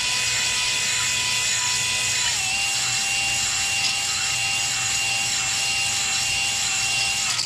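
A steady machine noise, like a power tool running, with a whine that steps down slightly in pitch about two seconds in. It cuts off suddenly near the end.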